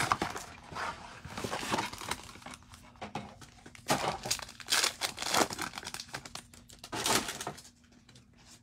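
Blaster box and foil card-pack wrappers of Panini Mosaic football cards crinkling and tearing open, in irregular rustles and crackles that die away near the end.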